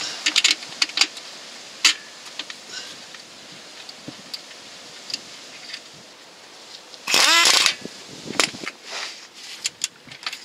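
Refitting the engine mounting bolt: scattered metal clicks and knocks of a wrench on the bolt, then about seven seconds in a power wrench spins the bolt for about half a second, with a shorter burst about a second later.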